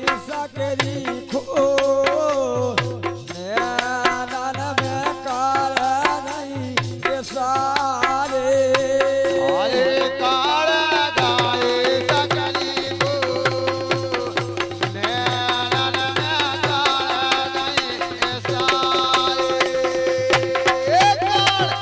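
Live Bundelkhandi Rai folk music: a male voice sings over held accompanying notes, with a hand drum beating a steady, quick rhythm and sharp metallic percussion strokes throughout.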